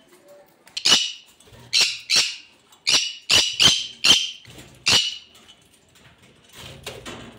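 Conures squawking: about eight loud, harsh screeches in quick succession over some four seconds, then fainter sounds near the end.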